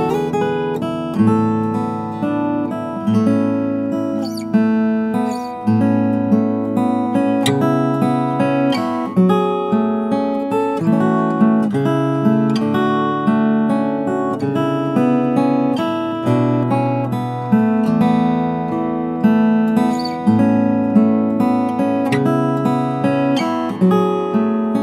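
Acoustic guitar played fingerstyle, with plucked bass notes under a melody and each note ringing and fading.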